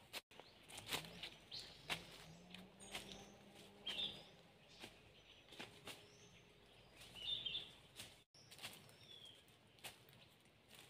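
Faint footsteps on dry leaf litter on a forest floor, irregular steps, with a few short bird chirps in the background.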